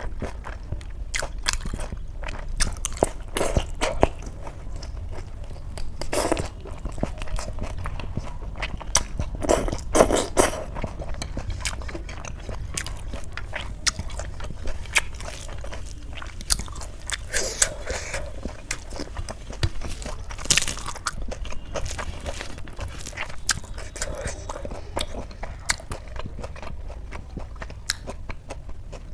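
A person chewing and eating close to the microphone: wet chewing with irregular crunches and small clicks.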